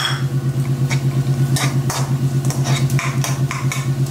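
A metal slotted spatula stirs and scrapes fried chicken pieces and scrambled egg around a frying pan, with scattered scrapes and taps against the pan. A steady, low pulsing hum runs underneath and is louder than the stirring.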